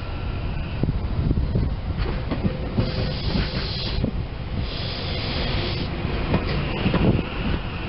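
SEPTA Silverliner V electric multiple-unit train rolling past close by: a steady rumble of wheels on rail with irregular clicks over the joints, and two short spells of high hiss about halfway through.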